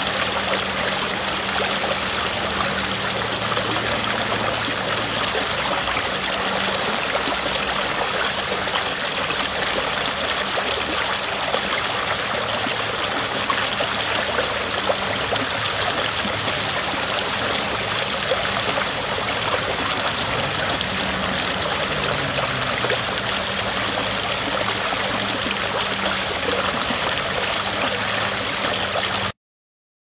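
Shallow stream running and splashing over rocks, a steady rushing of water that cuts off suddenly near the end.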